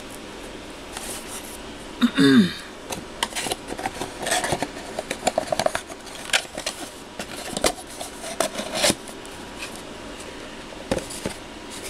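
Hands handling a ceramic mug and a cardboard box on a tabletop: scattered clicks, light knocks and rustles, with a brief wordless voice sound about two seconds in.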